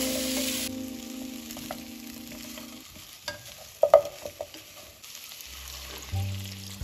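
Beetroot and onion sizzling softly in a nonstick frying pan while a wooden spatula stirs them, knocking and scraping against the pan several times around the middle. Background music fades out in the first few seconds and comes back near the end.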